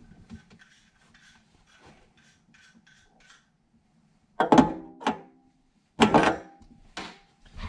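Kitchen faucet sprayer and its hose being handled and fed down through the sink deck: faint rubbing and ticking, then four sharp knocks against the sink about a second apart, some with a short ring.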